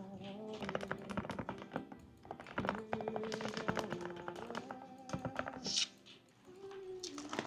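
Typing on a computer keyboard: quick runs of key clicks with a brief lull about six seconds in, over soft background music.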